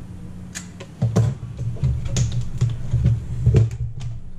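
Irregular sharp plastic clicks and taps as a Samsung laptop's case and parts are handled and worked loose during disassembly, over a steady low hum.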